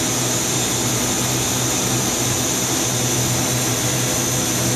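Deckel Maho DMU50 Evolution 5-axis CNC machining center running under power while its axes traverse: a steady mechanical hum with a hiss over it.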